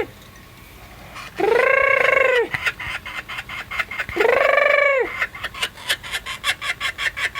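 A bird calling: two long, clear calls of about a second each, rising and then falling in pitch. From about five seconds in comes a quick run of short calls, about five a second.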